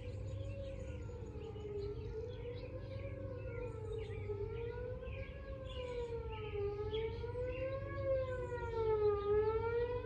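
Outdoor tornado warning siren sounding its monthly test, one steady wail whose pitch rises and falls in slow waves about every two and a half seconds.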